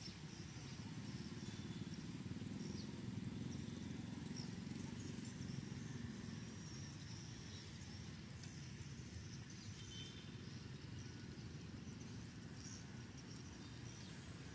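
Faint outdoor background noise: a steady low rumble with a few faint, short, high chirps scattered through it.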